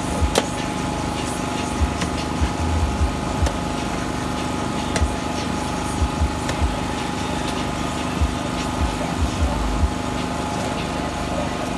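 A heavy cleaver chopping into a young green coconut on a wooden board: well over a dozen sharp, irregular knocks that stop near the end. A steady engine hum runs underneath.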